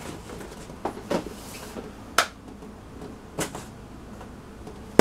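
Cardboard boxes being handled: a few short knocks and taps against a low steady room hum, with one sharper, louder hit at the very end.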